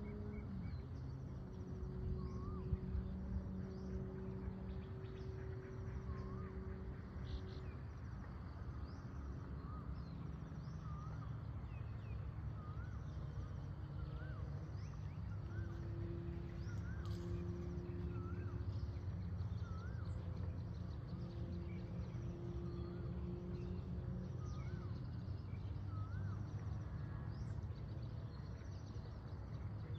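Outdoor morning ambience: birds calling with short, repeated chirps every second or two over a low, steady rumble.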